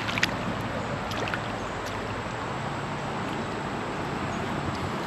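Steady rush of creek water around a small raft, with a few sharp clicks or splashes in the first second and a half.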